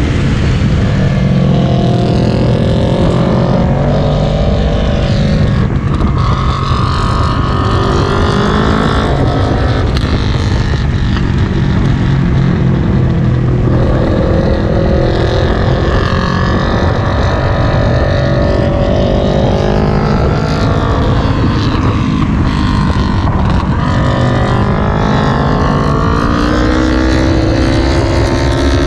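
Sport motorcycle engine heard from on board while it laps a track, its revs rising and falling again and again with throttle and gear changes.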